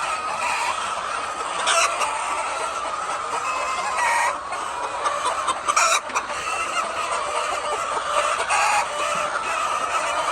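A large flock of chickens clucking together: a steady, dense din of overlapping calls, with a few louder single calls standing out now and then.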